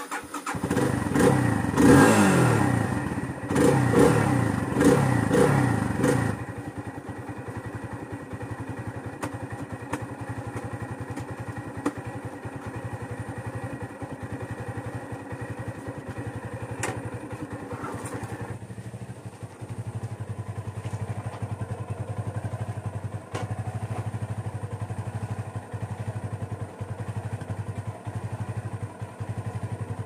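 Motorcycle engine revved several times in quick succession, each rev rising and falling in pitch, then settling to a steady idle about six seconds in.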